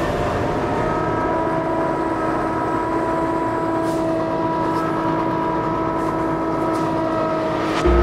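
Kubota B2650 compact tractor's three-cylinder diesel running steadily with its front snowblower engaged: an even mechanical drone carrying a constant whine.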